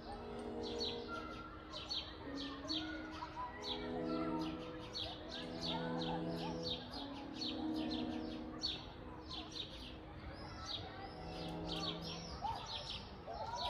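Many small birds chirping busily, several short chirps a second without pause, over soft music of slow held chords.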